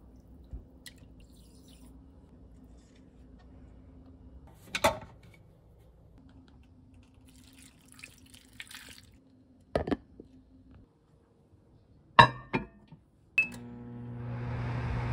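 Water trickling into bowls with a few sharp knocks of bowls and utensils. Near the end come clicks, a short beep, and then a microwave oven starts up with a steady hum.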